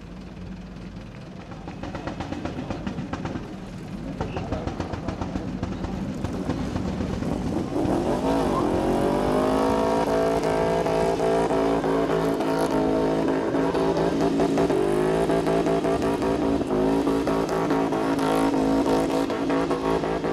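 Car engine drifting: a rougher, lower-level rumble first, then revving up about eight seconds in and held at high, nearly steady revs through a long tyre-smoking spin.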